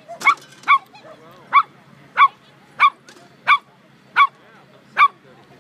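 A dog barking repeatedly in short, sharp, evenly spaced barks, about one every two-thirds of a second, eight in all.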